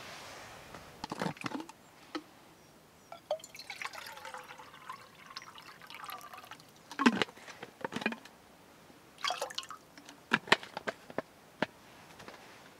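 Water poured from a bottle into a metal camp mug, the pitch of the stream rising as the mug fills. Several sharp clinks and knocks of camp gear being handled come before and after the pour, the loudest just after it.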